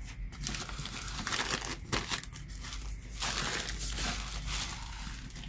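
A white wrapping bag of packaging crinkling and rustling as it is handled and turned over, in irregular bursts, loudest about three to four and a half seconds in.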